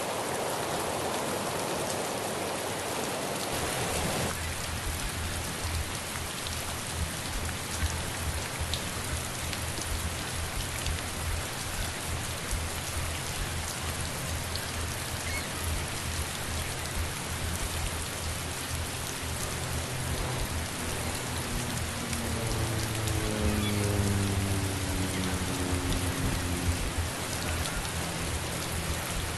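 Steady rain falling. About four seconds in, the sound changes and a low rumble joins underneath it. Later, a faint pitched hum with a slowly falling pitch rises a little and fades.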